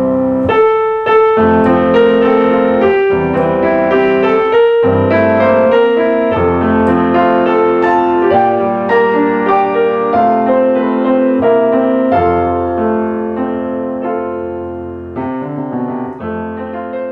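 Background piano music, slow with sustained chords and melody notes, growing softer near the end.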